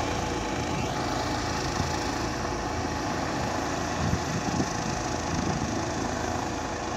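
Airbus H135 helicopter climbing away after takeoff: a steady drone of rotor and turbine noise that fades slightly near the end. Brief low rumbles come about four seconds in.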